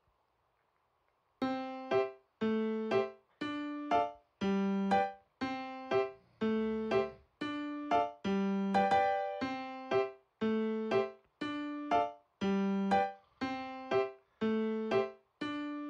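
Near silence for about the first second and a half, then background keyboard music with a piano-like sound: a light, evenly paced melody of ringing notes, about one note group a second.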